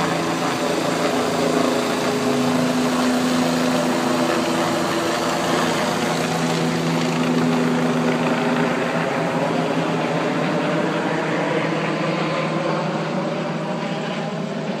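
Light helicopter with a two-blade main rotor flying low overhead: a steady engine-and-rotor drone that slides slightly down in pitch and fades toward the end.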